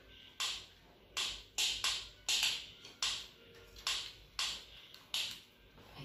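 Crisp rustling swishes, about two a second and unevenly spaced, as hands press and tuck fresh pechay leaves around pieces of fish in a frying pan.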